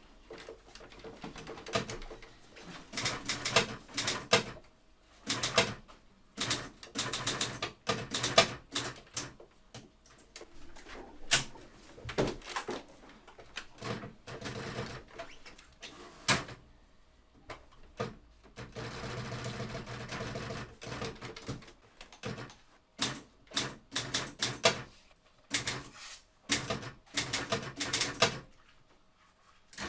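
Typewriter keys striking in irregular bursts of rapid clacks with short pauses between them, in a small room. About nineteen seconds in there is a longer, steadier rattle lasting a couple of seconds.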